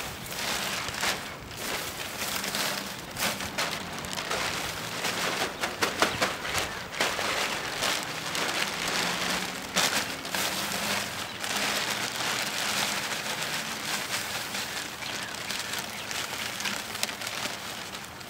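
Dry arugula seed stalks crushed and shaken by hand inside a plastic sheet over a bucket: a steady crackle and rustle of brittle pods breaking open to release their seed, with plastic crinkling.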